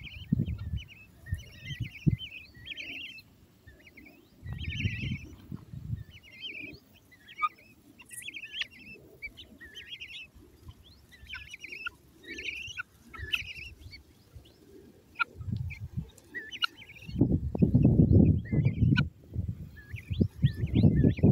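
Helmeted guinea fowl keets chirping, with short high calls repeated every second or so. Bouts of low rumbling noise on the microphone come and go and are loudest near the end.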